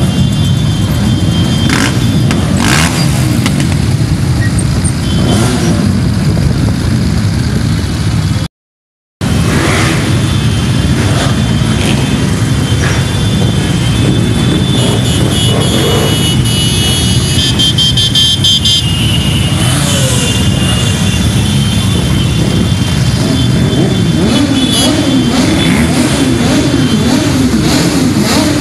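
A large group of motorcycles idling together, with engines being revved up and down, most noticeably toward the end. The sound cuts out completely for a moment about a third of the way in.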